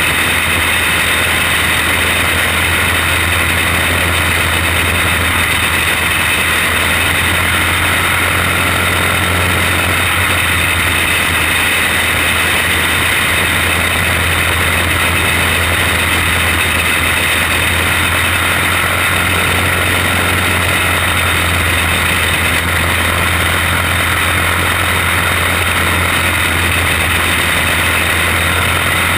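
Engine of a small caged single-seat racing car, heard from the car itself, running at racing speed. The level stays steady with no let-up.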